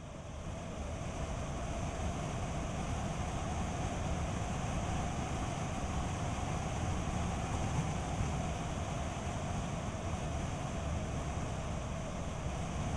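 Steady road and wind noise of a Skoda Kodiaq driving along at speed, fading in over the first second and then holding even.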